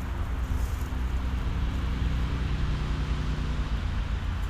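Wind buffeting the action camera's microphone as a steady low rumble, with a hiss of rustling leaves from shrubs brushing past.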